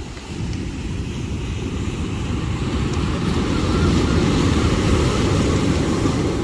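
Steady low rumble of strong wind buffeting the microphone, with surf, on a stormy beach, swelling a little midway and easing near the end.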